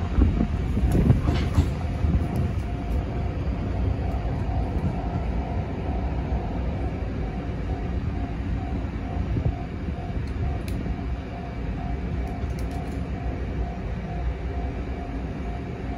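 JR East E653 series electric train running through a station: wheels clattering over rail joints in the first couple of seconds, then a steady rumble with a faint hum.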